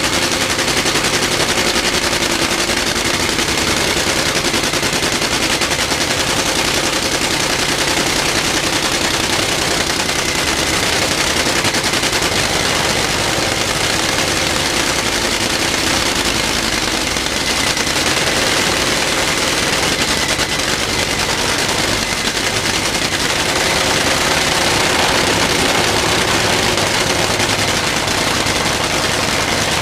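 Top Fuel Funny Car's supercharged, nitromethane-burning V8 running steadily during an engine test, a loud continuous rapid-firing sound.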